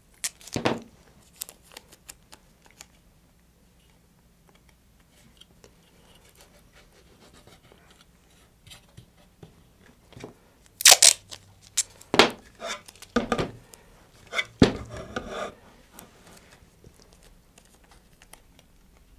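Masking tape being pulled off the roll and torn into short strips, then pressed around a fiberglass rocket motor tube, with light handling knocks. The rips are sparse at first, with the loudest coming in a cluster a little past halfway.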